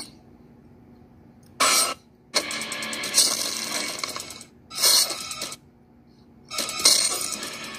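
Four loud bursts of rustling, scuffling noise, the longest about two seconds: a staged scuffle with the handheld recording device jostled.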